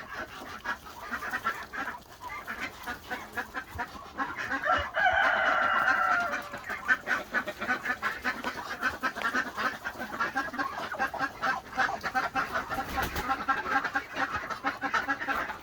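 Chickens clucking over rapid ticking, with one drawn-out call from a bird about five seconds in.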